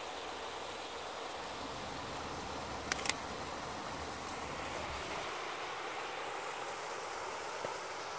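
Small woodland stream running steadily over a little rocky cascade. Two sharp clicks close together about three seconds in.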